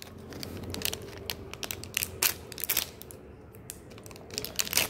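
Foil gum wrapper crinkling and crackling as it is torn open by hand, a run of irregular sharp crackles.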